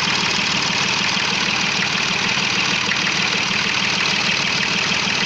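Perkins three-cylinder diesel engine idling steadily.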